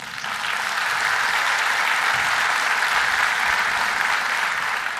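Audience applauding, the clapping building up over the first half second and then holding steady.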